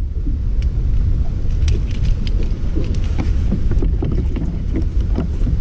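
Heavy wind buffeting a GoPro microphone with a constant low rumble, with scattered light clicks and small splashes of water around a kayak.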